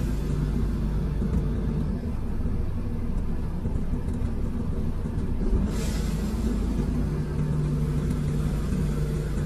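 Komatsu PC210 excavator's diesel engine running steadily, heard from inside the operator's cab. There is a brief hiss about six seconds in, and the engine note grows stronger just after it.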